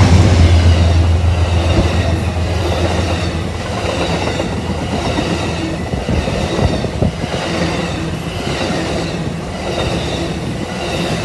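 Amtrak passenger train passing close by: the diesel locomotives' low engine drone is loudest at the start and fades over the first few seconds as they go by. The bilevel Superliner cars then roll past with a steady rumble and scattered wheel clicks on the rails.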